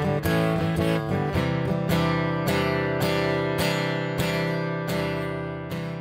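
Music of strummed acoustic guitar chords in a slow, steady rhythm, growing quieter near the end as it fades out.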